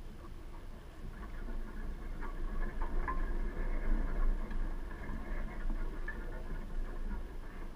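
A cat chewing chicken scraps: soft crunching and small clicks, over a steady low rumble.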